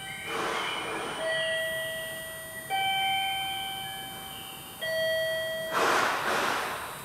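Electronic chime melody of held tones stepping from one pitch to the next, played over a railway station platform's speakers. It is cut through twice by a short burst of hissing, once just after it begins and again about six seconds in.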